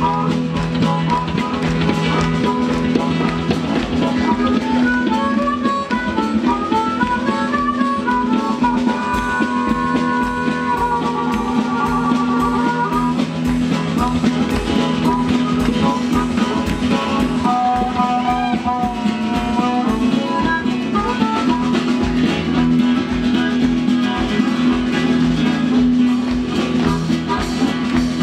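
Live blues band: a harmonica cupped against a vocal microphone plays a solo of bending, warbling notes over upright bass and drums keeping a steady beat.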